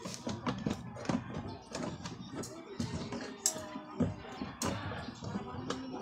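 Irregular light clicks and taps from hand-work at the motor and pulley area in the base of a washing machine.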